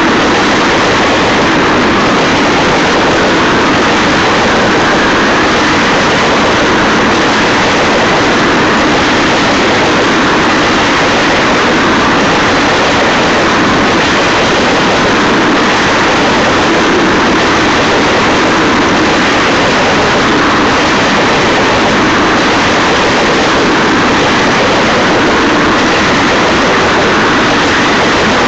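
Tank cars of a freight train rolling past, with a loud, steady noise of steel wheels on rail.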